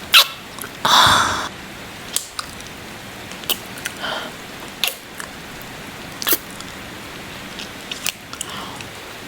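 Close-miked ASMR kissing and wet mouth sounds: a string of short smacks and clicks about a second apart, with one breathy exhale about a second in, over a steady background hiss of rain.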